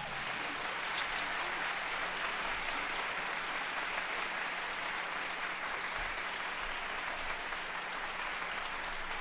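An audience applauding, a steady, even clatter of many hands clapping.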